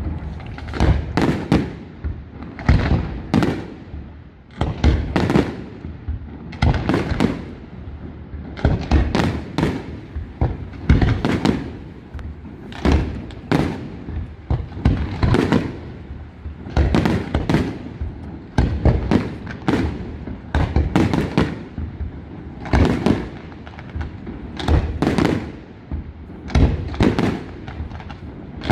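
Aerial fireworks going off in a continuous barrage: a rapid run of sharp bangs and booming shell bursts, several a second, each trailing off in a short echo.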